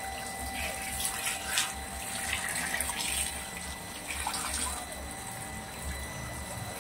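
Water from a hose pouring and splashing steadily onto a pile of freshly caught fish on a hard floor, rinsing them.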